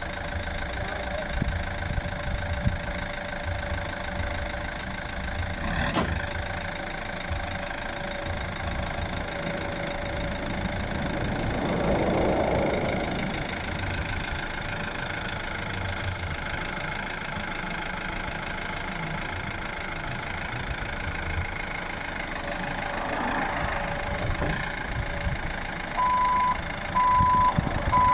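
A delivery vehicle's engine idling with a steady low rumble; near the end its reversing alarm starts, a single high beep repeating over and over.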